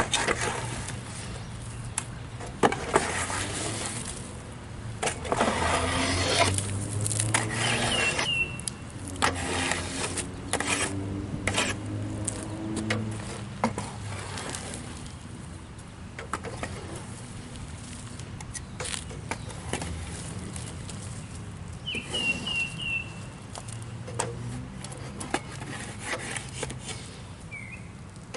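A garden rake fitted with a plywood board, dragged through sawdust on a sawmill in repeated scraping, sliding strokes, heaviest in the first half.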